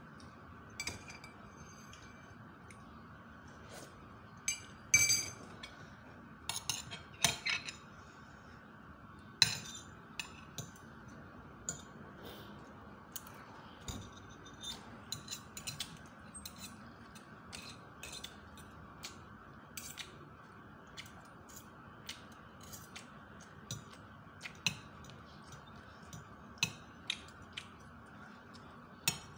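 Metal spoon and fork clinking and scraping against a plate while eating, irregular sharp clinks, a cluster of the loudest about five to ten seconds in, over a faint steady hum.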